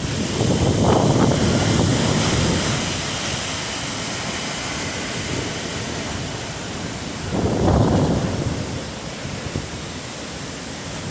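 Hurricane-force wind in a hurricane's eyewall, blowing continuously, with strong gusts about a second in and again near eight seconds. The gusts buffet the microphone.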